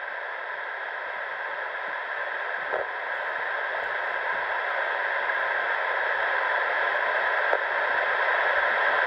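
Steady hiss of radio static from a railroad radio scanner, with no voice on the channel, slowly growing louder.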